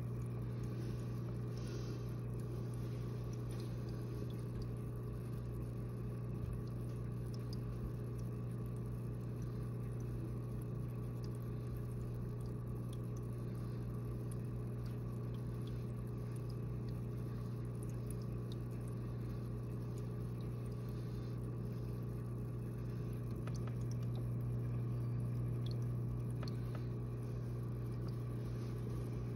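Steady low electrical hum of running aquarium equipment, with faint scattered ticks over it.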